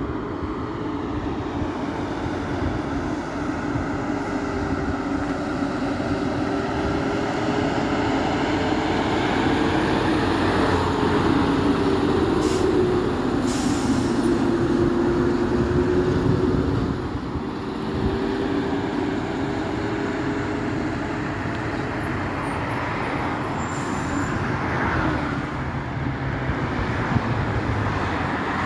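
Road and engine noise of a moving vehicle, a steady rumble with a drone that slowly drifts in pitch. It grows louder for several seconds around the middle, when a flatbed truck is passing alongside.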